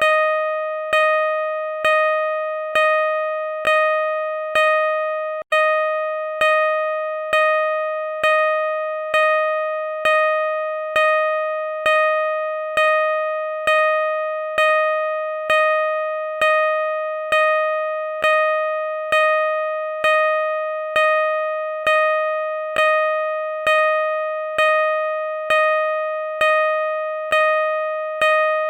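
Car parking sensor beeping at a steady, slow rate of about one beep a second, each beep a clear electronic tone that starts sharply and fades into the next, with a very short break about five seconds in.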